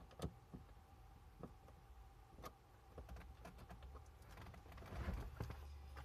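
A few faint, scattered clicks and taps of plastic interior trim being handled and fitted, with a soft rustle about two-thirds of the way through, over a low steady hum.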